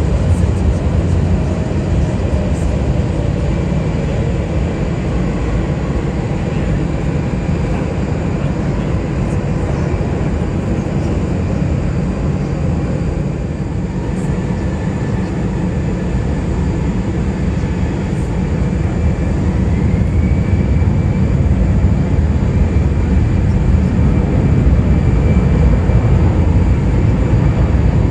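Jet airliner engines running: a steady low rumble with a faint high whine that rises slightly about two-thirds of the way through.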